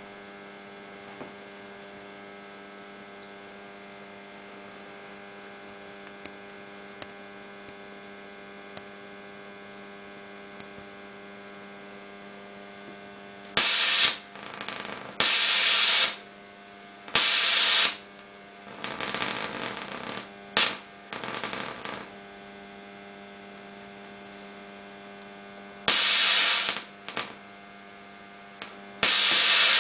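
Homemade Class-E solid-state Tesla coil running a 4 MHz continuous-wave plasma flame, heard as a steady electrical hum with a row of overtones. From about halfway in, a screwdriver held to the top terminal draws the discharge into a large flame, giving a run of loud rushing hisses, each half a second to a second and a half long, with quieter crackling between some of them.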